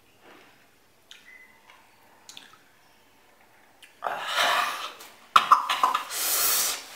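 A person chewing raw green chili with faint clicks, then breathing out hard through an open mouth in two loud, harsh hissing breaths, about four and five and a half seconds in, against the burn of the chili.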